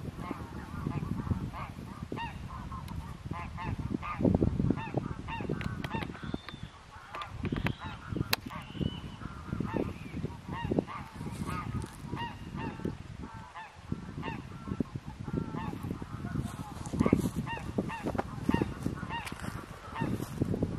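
A flock of wild geese calling, many honks overlapping without a break, over a low rumble.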